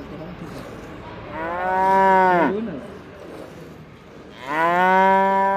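Sheep bleating twice: two long, loud calls a few seconds apart, each falling in pitch as it ends.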